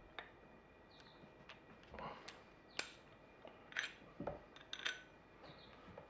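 Faint, scattered metallic clicks and clinks from handling a hydraulic crimping tool with a copper lug in its dies, with a few soft knocks; the sharpest click comes a little under three seconds in.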